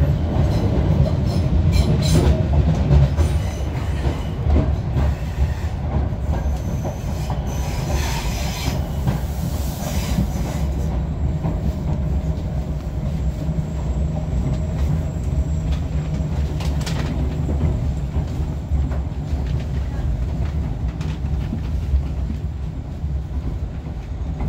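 A train running along the track: a steady low rumble with its wheels squealing on the rails.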